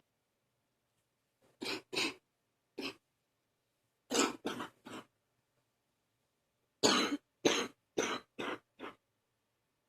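A person's deep cough: about eleven coughs in three short bouts, with quiet pauses between. The last bout of five coughs is the loudest.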